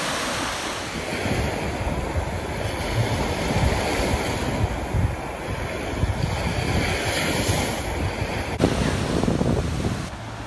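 Small waves breaking and washing up on a sandy shore, with gusting wind buffeting the microphone.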